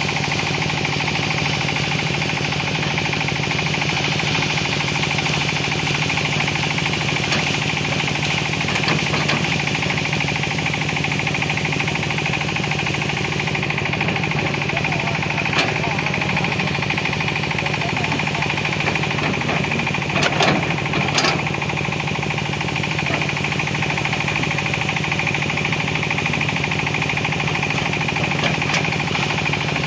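Hitachi ZX200 excavator's diesel engine running steadily under work, a fast even chugging. A few sharp knocks about two-thirds of the way through are the loudest moments.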